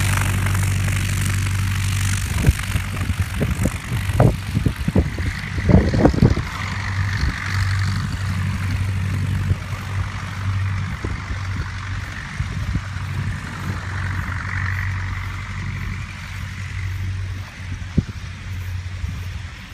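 B.A. Eagle light monoplane's engine running at a steady low idle as the aircraft taxis away, growing slowly fainter. A string of sharp knocks and crackles comes between about two and seven seconds in.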